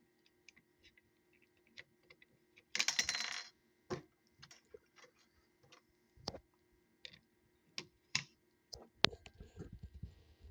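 Scattered light clicks and taps of small hard objects being handled, with a brief rattling scrape about three seconds in, the loudest sound.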